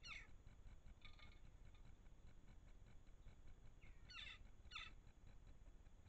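Crow-family birds giving short, faint calls: one at the start, another about a second in, and two close together about four seconds in, over a steady low rumble of camera noise.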